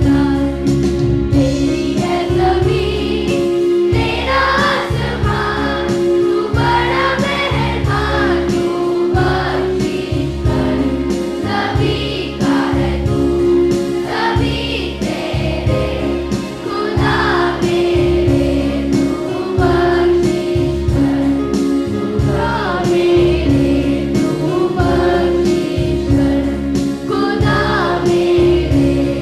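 A Hindi prayer song sung in chorus over steady held accompaniment notes and a regular rhythmic beat.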